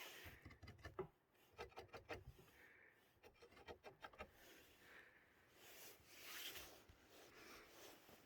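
Faint scratching on a surface, made to attract a cat: three short runs of quick scratch strokes, then slower, longer rubbing swishes in the second half.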